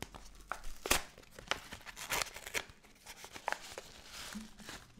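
A printed product packaging pouch being torn open and crinkled by hand: irregular crackling and rustling, with one sharp snap about a second in.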